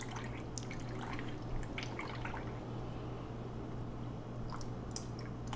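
Milk pouring from a plastic jug into a glass bowl of flour, with soft, irregular splashing and dripping sounds. A steady low hum runs underneath.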